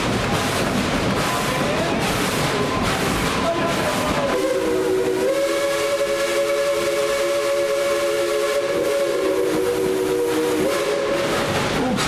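Steam locomotive's chime whistle blowing one long multi-note blast, starting about four seconds in and ending about a second before the end. The rumble and clatter of the running train sound underneath.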